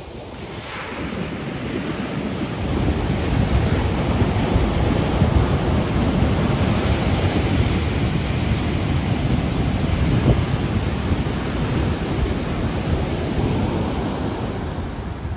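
Large hurricane-swell waves breaking and washing up the beach as continuous surf noise, building over the first few seconds and then staying loud, with wind buffeting the microphone.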